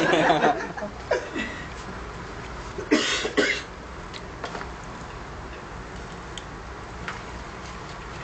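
Two short, loud breathy bursts from a person, close together about three seconds in, then low steady room noise with a few faint clicks.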